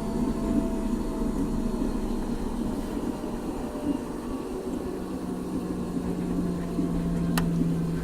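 Schulthess washing machine running its cycle: the drum motor hums steadily over the tumbling of wash and water, its pitch stepping down about five seconds in as the drum changes speed. A single sharp click near the end.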